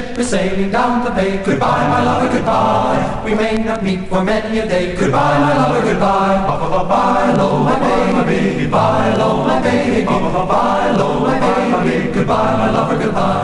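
A choir singing together in sustained phrases a second or two long, with short breaks between them.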